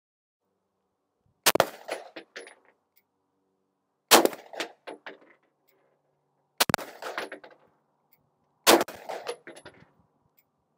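Slow, aimed shots from a Smith & Wesson M&P 2.0 9mm pistol, about two to two and a half seconds apart, each with a short ringing echo. There are four shots, with a fifth at the very end, as a five-round group to confirm a 25-yard red dot zero.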